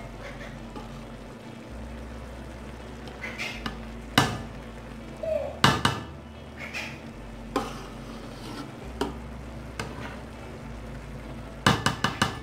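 Metal spatula stirring cooked vegetable rice in an aluminium pot, with a few sharp clinks against the pot and a quick run of taps near the end. A steady low hum runs underneath.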